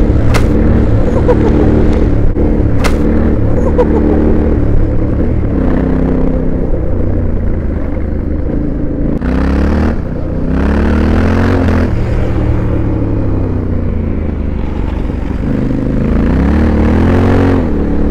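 Yamaha Ténéré 700's parallel-twin engine running under load on a loose gravel and sand track, revving up and easing off through several gear changes over a steady low rumble, with bursts of tyre and wind hiss. Twice in the first three seconds there is a sharp click.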